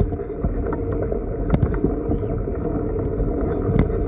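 Padyak (pedal tricycle) rolling over a rough dirt track: a steady rumble with wind on the microphone and a few sharp rattles, the loudest about one and a half seconds in and near the end.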